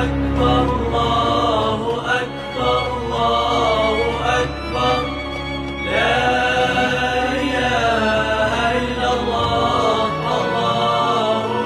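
Music with a chanted vocal melody over a steady low bass layer.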